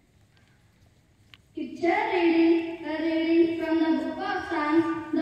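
Children singing a song with held notes, starting about a second and a half in after near silence.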